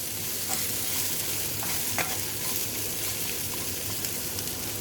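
Karela (bitter gourd) frying in hot oil with tempered chana dal and urad dal, a steady sizzle as it is stirred and mixed in the pan, with a few sharp clicks.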